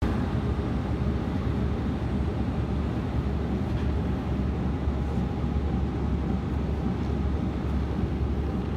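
Steady low hum and rumble of running machinery, unchanging throughout.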